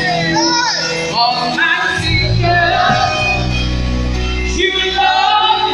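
Live gospel praise music: a choir singing with instrumental backing, with a heavy bass line coming in about two seconds in.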